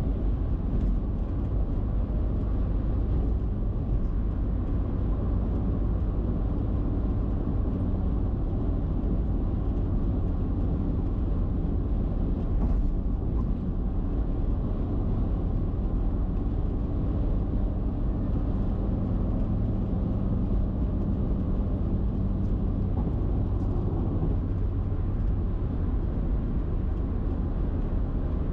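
A car cruising at expressway speed: steady tyre and wind noise with a low engine drone, heaviest in the bass and unchanging throughout.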